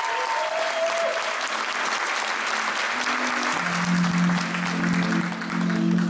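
An audience applauding, with music coming in about three and a half seconds in as low held notes.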